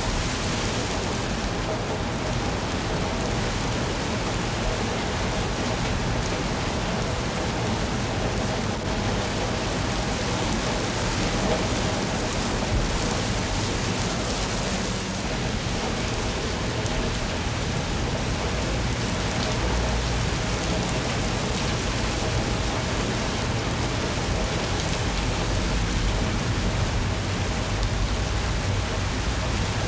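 Steady rain falling and pattering on surfaces, with a low rumble underneath.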